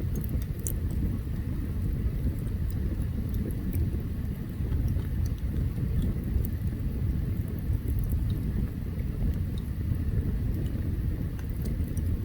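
Open campfire burning, with scattered sharp crackles and pops over a steady low rumble.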